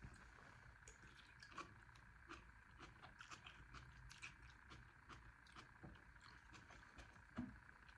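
Near silence with faint, scattered small clicks and ticks of quiet eating, with a slightly louder soft knock near the end.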